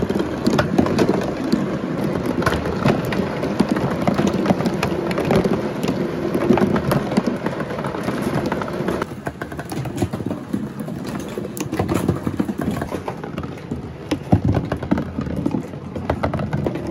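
Marble rolling and clattering down a cardboard marble-run track: a running rumble with many small clicks and knocks against the cardboard walls. The rumble drops about nine seconds in, with a few sharper knocks later.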